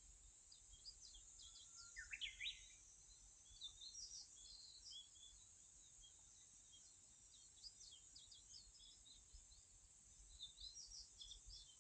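Faint small birds chirping and twittering on and off, with a louder quick run of rising chirps about two seconds in, over a steady high hiss.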